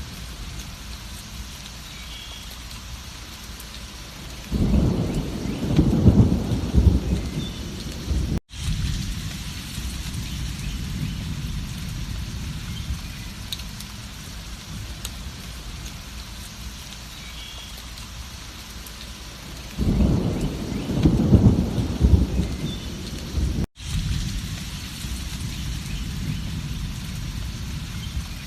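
Steady rainfall with two rolls of thunder about fifteen seconds apart, each lasting about four seconds. Each roll is cut off abruptly by a momentary dropout, where the looped recording repeats.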